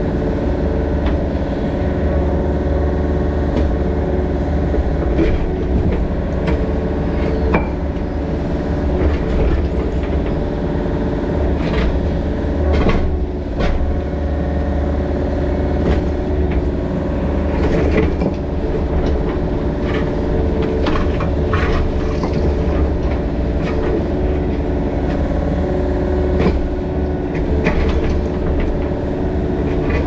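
Mini excavator's diesel engine running at a steady speed, with occasional short clanks and rattles.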